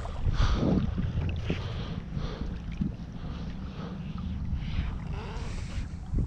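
Wind buffeting the microphone, with light splashing and swishing of river water around a person wading in chest waders.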